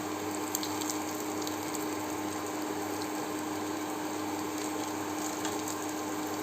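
Zucchini fritters frying in oil in a pan on low heat, just turned to their second side: a steady sizzle with a few faint crackles, over a steady hum.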